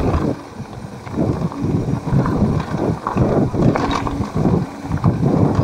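Wind buffeting a mountain biker's camera microphone while the bike rattles and knocks over a rough trail, in uneven surges.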